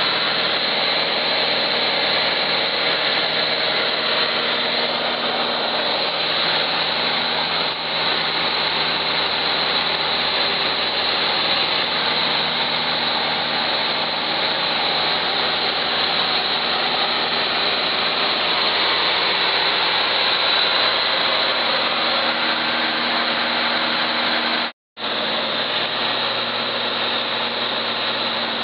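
Small single-engine floatplane's piston engine and propeller running steadily in flight, a loud, even drone with a steady hum, heard inside the cabin. The sound breaks off for a split second about 25 seconds in.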